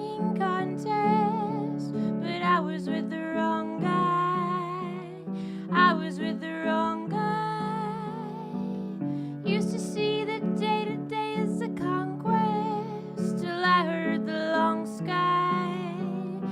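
Folk song performed live: a woman singing held, wavering notes over acoustic guitar.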